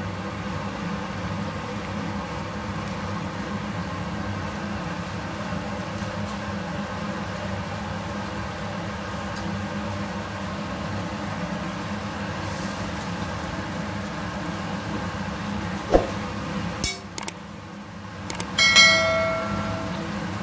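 Steady hiss and hum of chilli sambal simmering in a wok on an induction hob. Near the end come a few sharp clicks and then a short bell-like ding from a subscribe-button animation.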